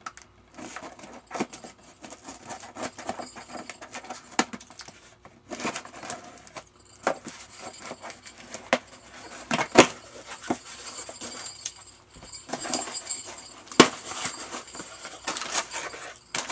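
Scissors blade scraping and cutting along the packing tape of a cardboard box, giving an irregular run of scratches, clicks and knocks against the cardboard.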